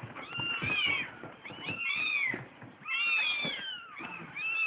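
Newborn kittens mewing: several thin, high calls that rise and fall, overlapping one another almost without a break.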